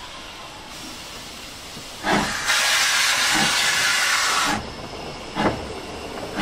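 Hunslet 0-6-0 saddle tank steam locomotive starting away. After about two seconds of faint hiss, the open cylinder drain cocks blast out loud hissing steam, broken by heavy exhaust chuffs about two seconds in and again near the end.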